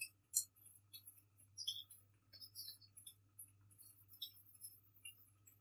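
Faint, scattered scrapes and light clinks of a slotted steel spoon against a steel kadhai as a thick mashed potato and onion filling is stirred, over a low steady hum.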